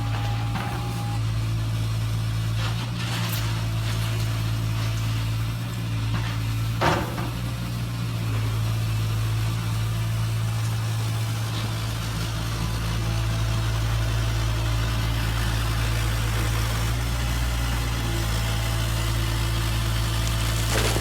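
Radio-controlled construction models running, giving a steady, low engine-like drone. A single sharp knock comes about seven seconds in.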